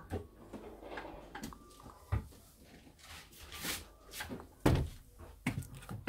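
Beko dishwasher door being unlatched and lowered open, followed by scattered clunks and rattles of parts inside the tub being handled, with two louder thuds about two seconds and nearly five seconds in.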